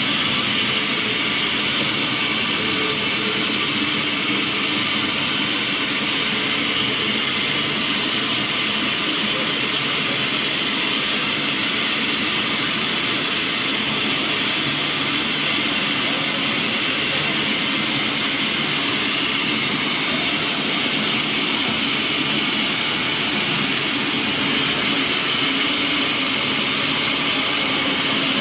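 OLIVINOX 300 mini continuous olive oil extraction machine running steadily: a loud, even mechanical hiss and whine that does not change.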